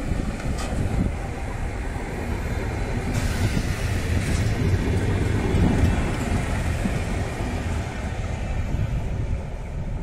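A Renfe electric passenger train running past along the station platform: a steady, low rumble of wheels on rails.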